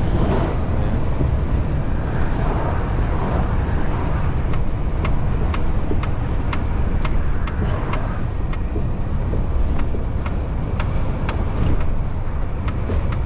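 Heavy recovery truck driving at road speed with a loaded 18-tonne lorry on the back: a steady low engine and road rumble heard from inside the cab. A run of sharp light clicks, about two a second, sounds through the middle.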